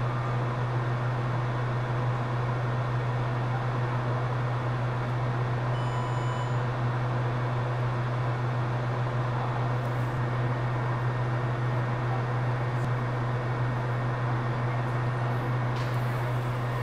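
Steady whir and low hum from running bench equipment, such as a fan, holding an even level throughout. A faint short tone comes about six seconds in.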